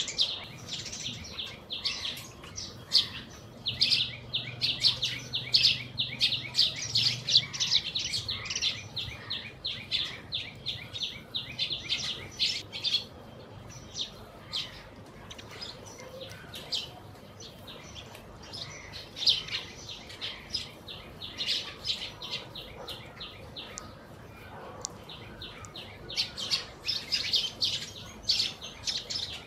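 A flock of Eurasian tree sparrows chirping while feeding. The rapid chirps overlap, thin out for a stretch in the middle and get busy again near the end.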